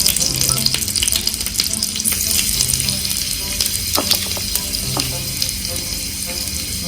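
Food frying and sizzling in a miniature cooking pot, a steady hiss, with a few light clicks of a small utensil about four and five seconds in.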